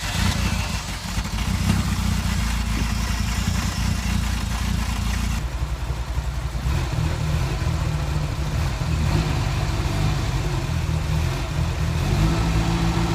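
Ferrari 308 GTS's V8 engine catching and then running steadily, its settled pitch shifting about six seconds in. The belt pulleys have just been de-rusted to cure a clicking from the engine bay at high revs, and the result sounds little changed.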